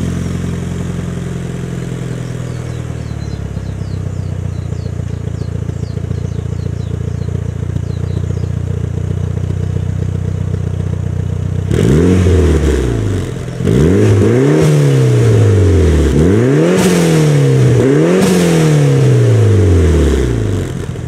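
1996 Mitsubishi Lancer Evolution IV's turbocharged four-cylinder engine, heard through an HKS Hi-Power exhaust with a cat delete, idling steadily. About twelve seconds in it is revved about four times in quick succession, each rev rising and falling back.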